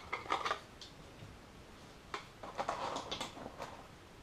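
Small plastic clicks and rattles of AA batteries being fitted into the battery compartment of a Hubsan H107D+ transmitter, in two short bursts of handling: one at the start and another from about two seconds in.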